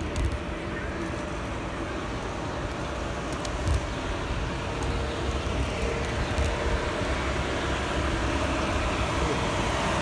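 City street traffic heard from a bicycle riding in a bus lane behind a city bus: a steady rumble of engines and tyres, with one short knock about four seconds in.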